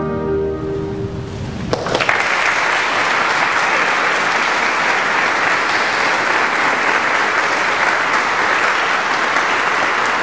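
The orchestra's final held chord fades away, then a little under two seconds in the audience breaks into applause that carries on steadily.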